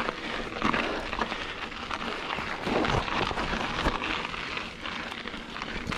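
Diamondback Recoil mountain bike rolling over loose desert dirt and gravel: the tyres crunch and crackle steadily, with scattered clicks and small rattles.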